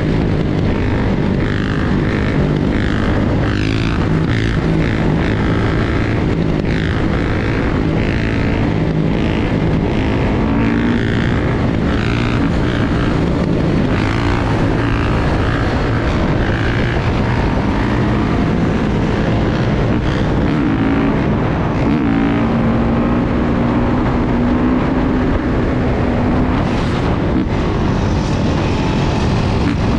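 Dirt bike engine running while being ridden, its pitch shifting with the throttle, under heavy wind noise on the microphone.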